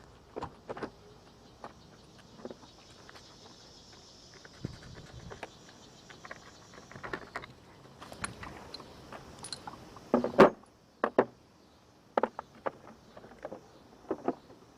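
Scattered clicks, taps and knocks of tools and parts being handled during work on a car engine, with a cluster of louder knocks about ten seconds in.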